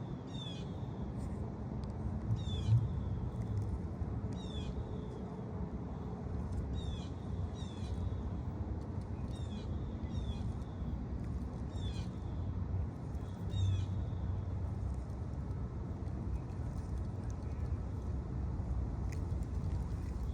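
A bird calling over and over in short, sharp, high calls, about one a second and unevenly spaced, stopping about two-thirds of the way through. Wind rumbles on the microphone underneath.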